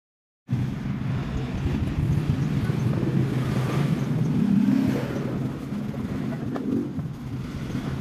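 Steady low rumble of a motor vehicle engine running, cutting in abruptly about half a second in.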